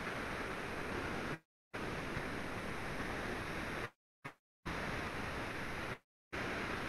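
Steady background hiss on the call's microphone line, cutting out to dead silence four times for a fraction of a second each.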